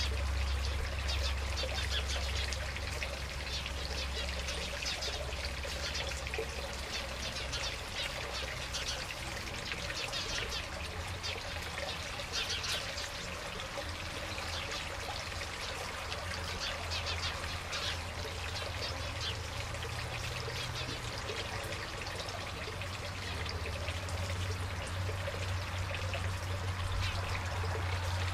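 Steady trickling of water over a low, even rumble, with no call from the sparrowhawk.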